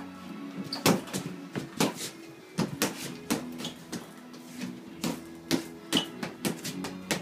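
Punches landing on a hanging heavy punching bag: about a dozen sharp smacks in irregular flurries.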